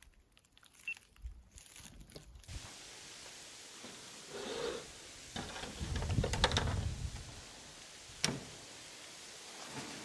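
Handling noises: rustling with a few sharp clicks and knocks as a cable and camp gear are moved about on a plastic folding table, with a louder stretch of bumping about six seconds in.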